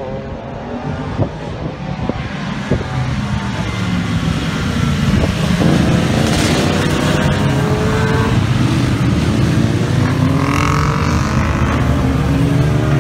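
Several motorcycles riding past one after another, their engines revving up and down through the gears. The sound swells about five seconds in as the bunch of bikes comes close, and stays loud with several engines overlapping.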